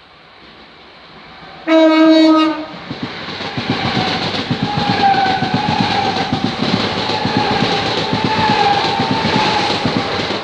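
Passing electric train sounding one short horn blast, about a second long, a little under two seconds in. It then runs through the station at speed, with rapid wheel clatter and a steady high whine.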